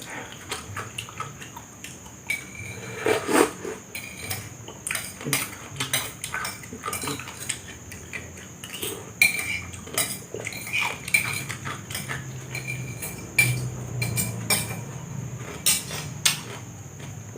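Utensils clinking and scraping against a plate or bowl in quick, irregular strokes while someone eats fried noodles.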